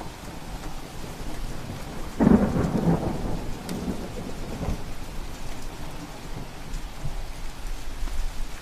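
Steady rain, with a sudden rumble of thunder about two seconds in that fades over the next few seconds.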